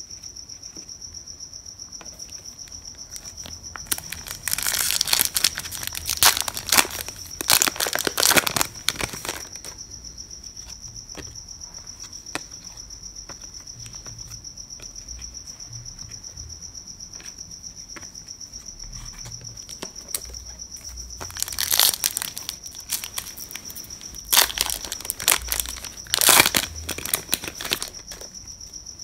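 A cricket chirping in a steady, fast pulsing trill throughout. Twice, a little after the start and again in the second half, a trading-card pack wrapper is crinkled and torn open; these are the loudest sounds.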